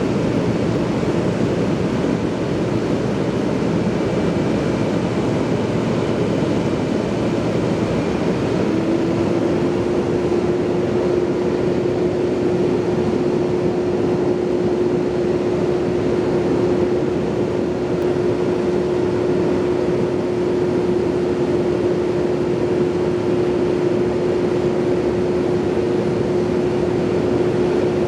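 Steady engine running under a dense, even rumble of noise. About nine seconds in, a single steady hum sets in and holds.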